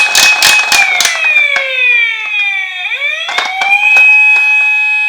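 Toy ambulance's electronic wailing siren: it holds a high note, slides slowly down over about two seconds, then rises again about three seconds in and holds. Sharp clicks and knocks sound over it, thickest in the first second.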